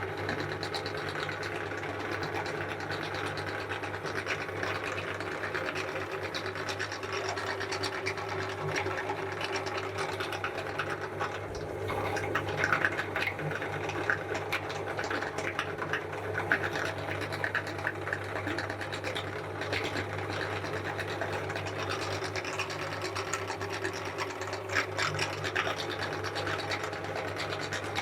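Electric meat grinder motor running with a steady hum while a butterscotch ice cream cone is ground, with bursts of crackling crunches about halfway through and again near the end.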